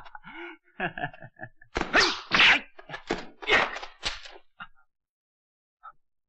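Kung fu fight-scene sound effects: a run of loud whacking blows mixed with a man's grunts and gasps, stopping about four and a half seconds in.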